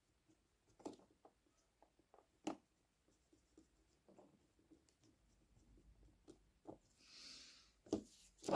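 Near silence with a few faint clicks and light scratching: the motor of an HO-scale model diesel locomotive being wiped clean, its commutator dirty.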